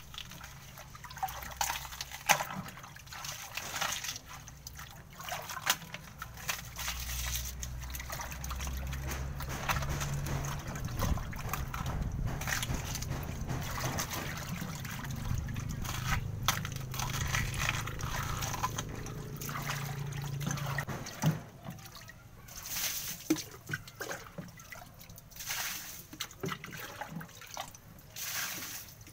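Water sloshing and splashing as hands stir and scrub through a shallow pool of foamy water with chopped plant stems floating in it, with irregular small splashes and drips.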